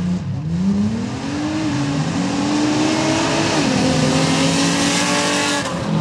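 Drag-racing Jeep's engine at full throttle as it launches down a dirt drag strip, its pitch climbing, dropping sharply at a gear shift a little past halfway, then climbing again. A growing hiss rides over the engine as the tires throw dirt.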